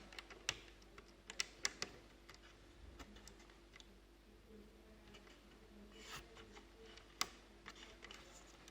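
Faint, scattered clicks and taps of small plastic laptop parts and cable connectors being handled and pressed into place on a laptop motherboard.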